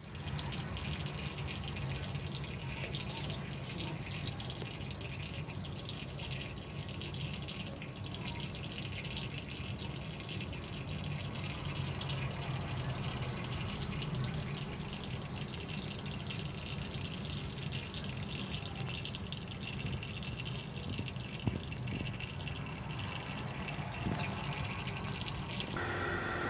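Steady running water with fine splashing, over a low hum. About a second before the end it gives way to a steadier hiss with a high whine.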